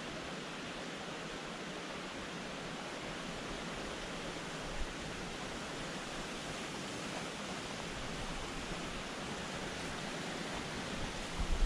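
Small rocky brook running steadily over stones, a constant rushing hiss. Low rumbling bumps come in near the end.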